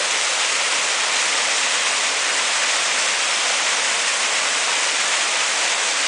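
Steady rushing of a waterfall, water falling from a height into a rocky pool.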